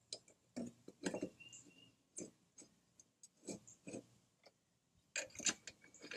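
Irregular light metallic clicks and taps as the Honda HRC216 mower's steel blade is handled and seated against its blade adapter, with a denser run of clicks about five seconds in.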